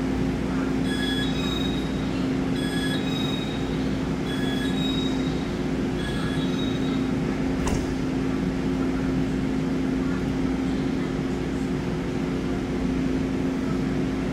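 Four rounds of a two-tone electronic door-closing warning chime on a Taiwan Railways Tze-Chiang express car, followed by a single clunk as the door shuts about 7.7 s in. A steady hum from the stationary train continues underneath.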